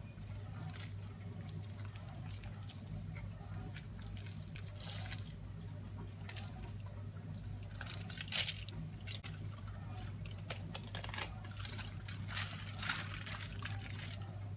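Aluminium foil wrapper crinkling and rustling as hands peel it open, in irregular bursts, over a steady low hum.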